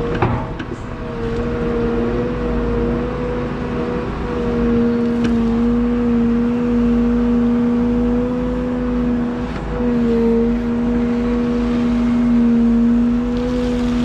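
Liebherr A913 Compact wheeled excavator's diesel engine and hydraulics running steadily under load as the boom works a grading beam, with a held whine that wavers slightly in pitch. A single sharp knock sounds right at the start.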